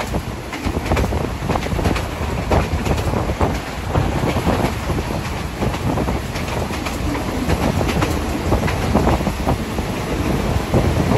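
State Railway of Thailand local passenger train running at speed, heard at an open coach window: a steady rush of running noise with frequent irregular clacks of the wheels over the rail joints.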